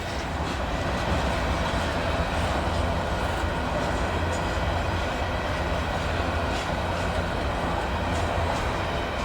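Union Pacific freight train of covered grain hopper cars rolling slowly past: a steady rumble of steel wheels on rail, with a few faint clicks.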